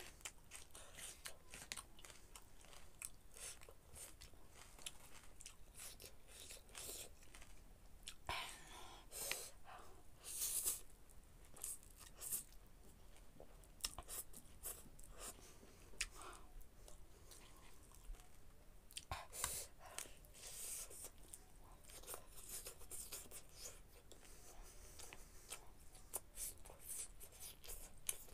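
Close-miked chewing of spicy noodles and chicken: many short, wet mouth clicks and smacks, with a few louder drawn-out slurps of noodles about a third of the way in and again past the middle.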